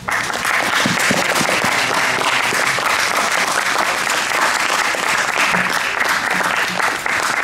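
A room of students applauding: the clapping breaks out all at once and carries on steadily.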